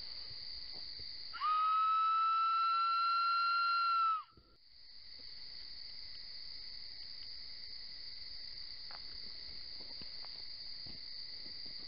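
A person whistles one long note of about three seconds, rising slightly in pitch, as a call to lure wildlife in. Night insects chirr steadily behind it throughout.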